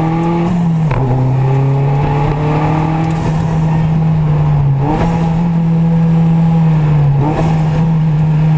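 Opel Speedster Turbo's turbocharged four-cylinder engine pulling hard, heard from inside the cabin on a rally stage. Its pitch drops about a second in, climbs again about five seconds in, and drops once more near seven and a half seconds.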